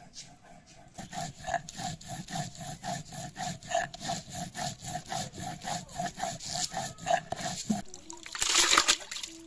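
Hand-held grinding stone rubbed back and forth over wet spice paste on a wooden grinding board, a steady rasping stroke about four times a second. Near the end the grinding stops and water is poured into a plastic bucket in a brief loud splash.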